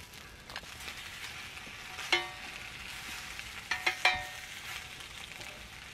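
Pieces of pre-cooked, frozen daechang (beef large intestine) sizzling on a hot black enamelled grill pan. Metal tongs clink against the pan with a short ring, once about two seconds in and a few times around four seconds.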